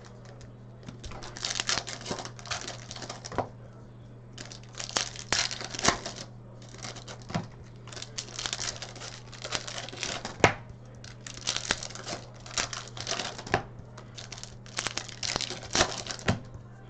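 Trading-card pack wrappers crinkling and tearing as hockey card packs are opened, in repeated irregular bursts with sharp clicks.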